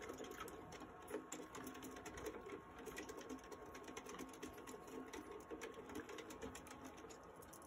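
Sugar glider running in a cage exercise wheel: a fast whirring rattle with quick clicks of its feet, which dies away near the end.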